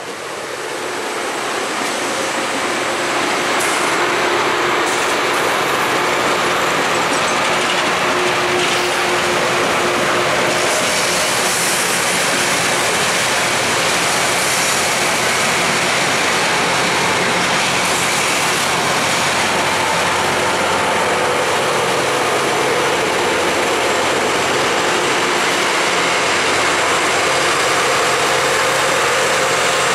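Loram rail grinder train passing close by while grinding the rail: a loud, steady hiss of grinding stones on the rail over the low drone of its diesel engines. The sound builds over the first few seconds as the grinding cars come alongside, then holds.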